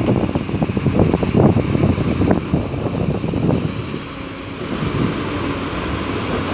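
Heavy earthmoving machinery running, an XCMG hydraulic excavator and dump trucks, with wind buffeting the microphone. The gusty buffeting eases about four seconds in, leaving a steadier engine rumble.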